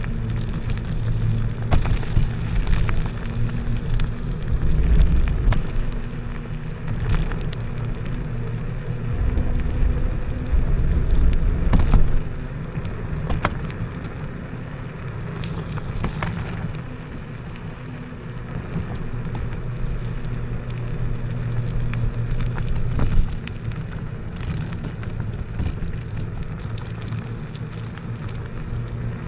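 IO HAWK Legacy electric scooter ridden off-road over rough wet ground: a steady low motor hum under tyre rumble that swells and eases, with scattered knocks and rattles from bumps, the sharpest about twelve seconds in and near the end.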